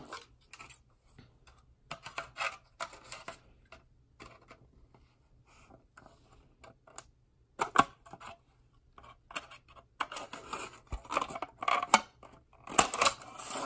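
Scissors snipping through a thin plastic candy-kit tray, with crackles and clicks from the plastic being handled. The cuts come in scattered clusters and are densest and loudest over the last few seconds.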